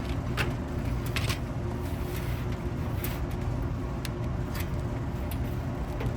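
A steady low machine hum with scattered light clicks and taps, as of wires and small tools being handled.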